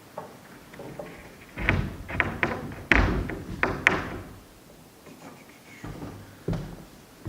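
Knocks and thuds on wood, a quick cluster of sharp strikes about a second and a half in, with the loudest near the middle, then a few more near the end: a cut piece of deck lumber being banged into a tight fit.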